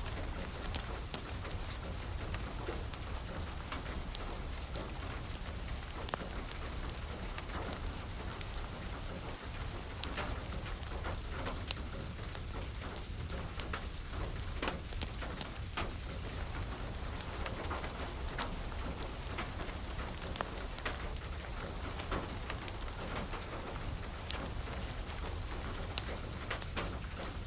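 Steady rain falling, with scattered sharp crackles and pops from a burning wood fire.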